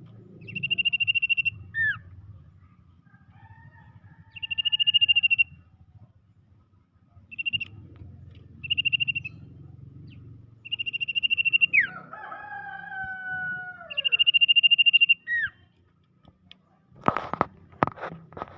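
Common iora (cipoh/sirtu) calling: a recorded lure call of long buzzy trilled notes, each about a second, repeated with pauses, between softer descending whistles. A few sharp clicks near the end.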